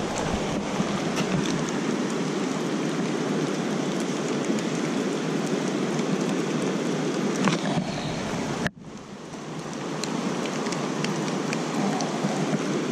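Steady hiss of rain and flowing river water. It cuts out abruptly about nine seconds in and swells back up over a second or two.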